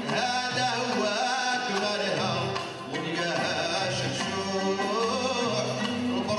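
Moroccan malhun music from a live ensemble: violins and oud play a melody over a steady frame-drum beat, with male voices singing.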